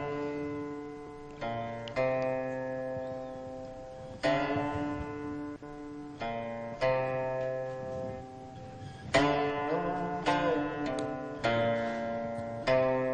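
Slow background music on a plucked string instrument: single notes and chords struck every second or two and left to ring and fade, with a few bent, wavering notes about ten seconds in.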